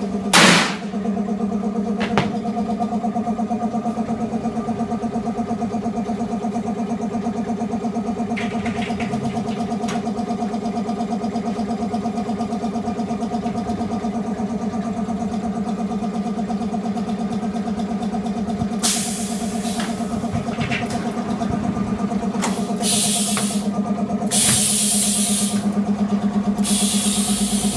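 Automatic glass cutting machine running with a steady hum and a fast, even ripple. Short sharp hisses of air come once near the start and then several times in the last third, the longest a couple of seconds.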